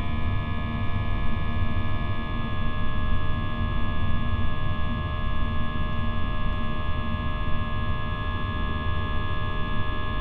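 Steady cabin noise of an Airbus A320-232 climbing after takeoff: a low rush of air and engine, with several steady whining tones from its IAE V2500 turbofan engines.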